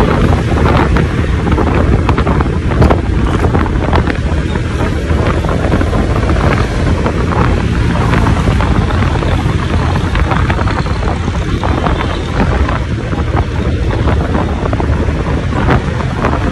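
Wind buffeting the microphone over a steady rumble of engine and road noise from a vehicle riding along in traffic.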